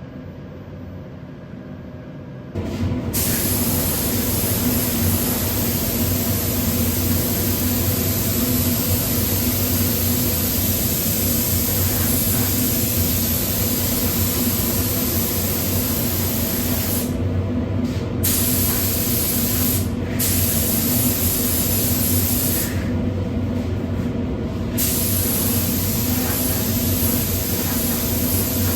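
Paint spray gun hissing as 2K acrylic paint is sprayed, starting about two and a half seconds in and stopping briefly three times as the trigger is let off, over a steady low hum.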